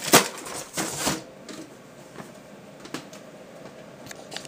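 Cardboard box being handled and set down: a sharp knock just after the start, a rustling scrape of cardboard about a second in, then a few light clicks.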